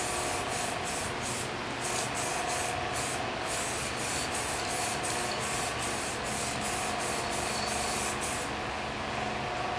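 Aerosol spray-paint can hissing in a quick run of short bursts as a coat of paint is blended over an earlier coat. It stops about a second before the end.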